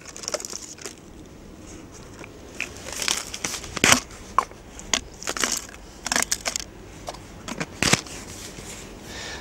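Fishing floats being put away in a plastic float tube: the cap is pulled off, floats are slid in and the cap is pushed back on. This gives scattered plastic clicks and knocks, the sharpest about four and eight seconds in.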